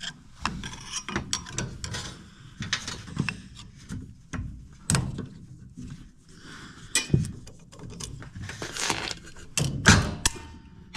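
Clicks, scrapes and knocks of a screwdriver and metal parts as the screws holding a hydronic zone valve's power head are taken out and the head is worked off the brass valve body. Near the end comes the loudest clack, as the valve snaps shut.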